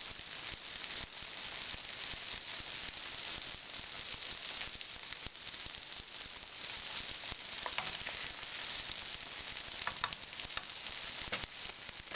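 An egg frying in a hot pan with diced Spam, roasted potatoes and vegetables: a steady sizzle with a few sharper crackles in the second half.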